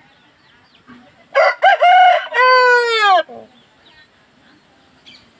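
Aseel rooster crowing once, starting about a second in: a few short opening notes, then a long note that falls in pitch and breaks off, the whole crow lasting about two seconds.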